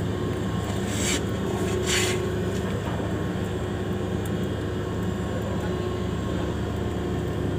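Steady low drone of marine engine machinery with a constant hum. Two short hissing bursts come about one and two seconds in.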